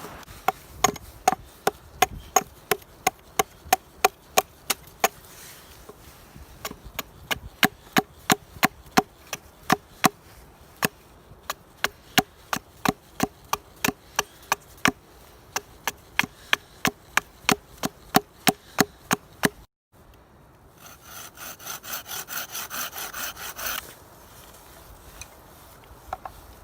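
Wood being chopped with a blade, sharp knocks coming steadily about two to three a second with a couple of short pauses, likely shaping tent pegs. After a brief break, a short run of quick sawing strokes on wood.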